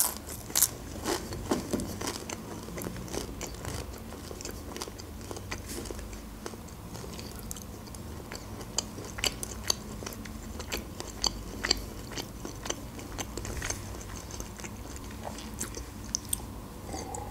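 Close-miked chewing: short wet mouth clicks and smacks as food is chewed, with a sip from a glass of orange soda near the end.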